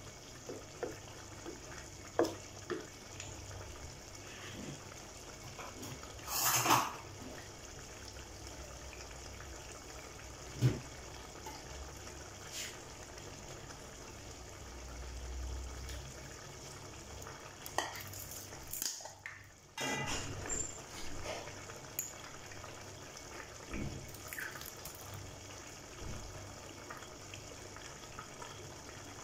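Wooden spoon stirring a large aluminium pot of boiling fumbwa stew, over a steady bubbling hiss from the pot. Scattered sharp knocks and scrapes of the spoon and a jar against the pot, the loudest about ten seconds in.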